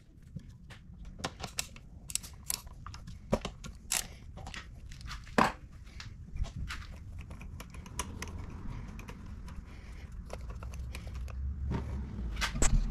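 Irregular metallic clicks and taps of a socket on an extension being fitted to and turned on the 10 mm oil drain bolt of a small four-stroke outboard, with hand-handling rustle over a low background rumble. One sharp click about five and a half seconds in, and a louder run of clicks near the end as the bolt comes free and the oil starts to drain.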